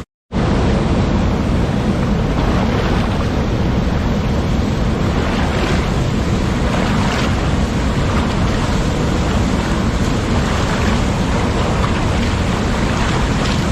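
Waterfall, water rushing steadily with a dense, even hiss, broken by a split-second gap of silence at the very start.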